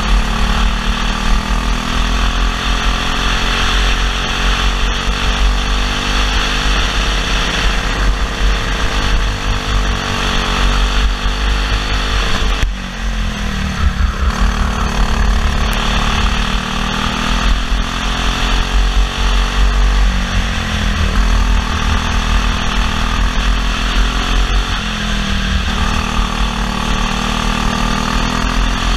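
Briggs & Stratton LO206 single-cylinder four-stroke kart engine at racing speed, heard from on board. Its pitch rises and falls through the lap and drops sharply about thirteen seconds in as the kart slows for a corner, then climbs again. A heavy wind rumble on the microphone runs underneath.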